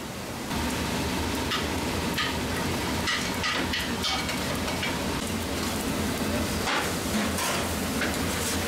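Sauce sizzling and crackling in a hot pan on a gas burner, with many small pops over a steady low hum. It steps up about half a second in.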